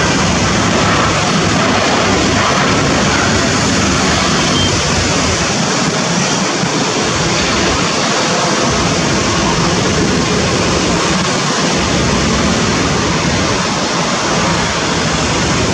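ATR 72 twin-turboprop airliner's engines and propellers running at high power as it rolls along the runway: a loud, steady rush of noise.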